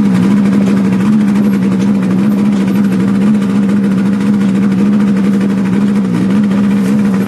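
The engine of the vehicle hauling the heavily loaded log trailer, revved up and held at high, steady revs for about seven seconds, then dropping away at the end.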